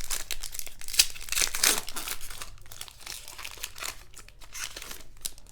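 Plastic wrapper of a baseball card pack crinkling and tearing as it is ripped open and handled, with the sharpest crackles about a second in.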